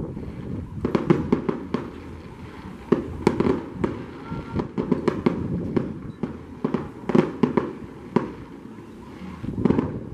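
Aerial fireworks bursting in the sky: a rapid, irregular series of sharp bangs, several coming in quick clusters.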